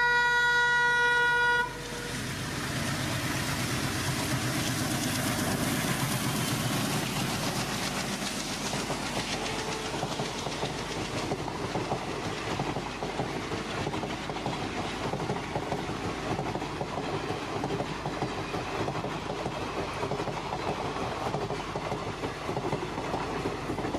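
A pair of WDG3A ALCO diesel locomotives give one steady horn blast that cuts off about two seconds in. Then the train runs past at speed: the noise swells over several seconds and settles into the steady rush and wheel clatter of the passenger coaches going by.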